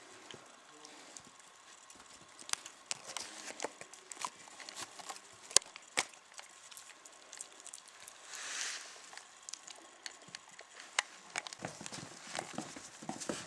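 Chinese crested puppies scrambling and playing on the floor: irregular clicks and taps of their feet and claws, with one sharp loud click about six seconds in and a short rustling hiss a couple of seconds later.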